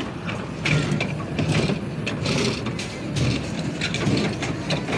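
Children's car carousel turning, its mechanism giving a steady low rumble with irregular rattling and clicking.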